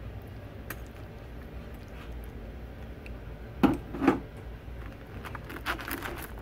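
Handling noises from assembling a sandwich on a baking sheet: a few soft clicks and scrapes, with two louder short knocks about three and a half and four seconds in, over a steady low hum.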